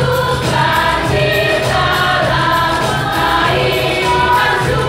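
Choir of mostly women singing a Christian song in long, sustained notes.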